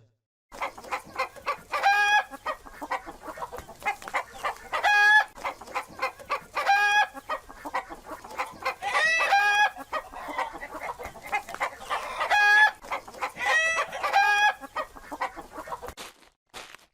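Hens clucking continuously, with longer, higher-pitched calls breaking in every two to three seconds. The sound stops shortly before the end.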